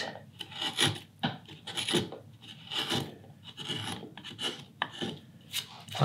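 Sharp woodcarving gouge pushed by hand across the grain in a wooden ladle bowl, paring off shavings in a string of short scraping cuts, about one or two a second.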